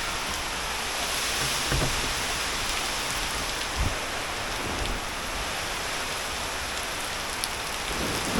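Heavy rain falling steadily, a constant hiss with a few louder drops ticking here and there.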